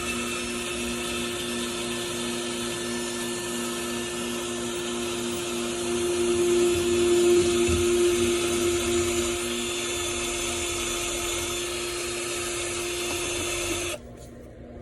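Electric drill spinning a brush to clean dirt off a two-stroke motorcycle cylinder: a steady whine that grows louder for a few seconds in the middle and stops about a second before the end.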